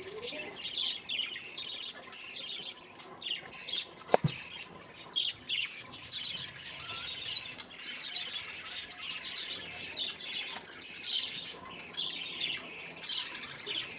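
Birds chattering nonstop with many short, harsh, high calls. A single sharp click or knock about four seconds in is the loudest sound.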